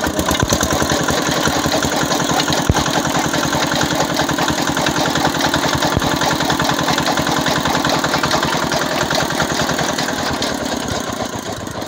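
Single-cylinder Swan 6HP diesel engine running at a steady speed with a rapid, even firing beat, driving a chaff cutter's flywheel. It gets a little quieter toward the end.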